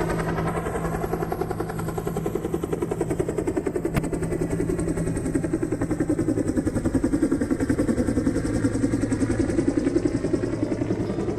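Helicopter running: the fast, even beat of the main rotor blades over a steady turbine-engine tone.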